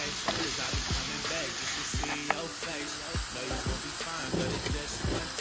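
Sliced mushrooms and onions sizzling in a frying pan, with irregular knocks and scrapes from a wooden spoon stirring them.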